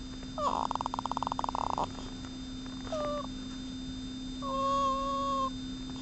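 Cat making soft, baby-like vocal noises: a pulsing trill of over a second about half a second in, a short chirp around three seconds, and a longer, steadier call near the end.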